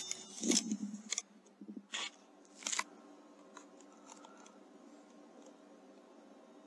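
Three short sharp clicks or knocks in the first three seconds, the last two about a second apart, then a faint steady hiss.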